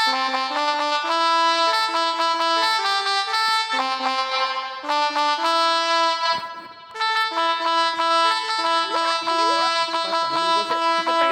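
Pianika (melodica) app on a mobile phone playing a telolet bus-horn style tune through the phone's speaker: reedy held notes, several sounding together, changing pitch every half second or so, with a short break about six seconds in.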